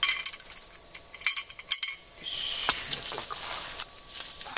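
Metal tongs clack against a grill pan a few times in the first two seconds while mackerel fillets are turned. From about two seconds in, the fish sizzles in the hot pan over a wood fire. Insects chirp steadily throughout.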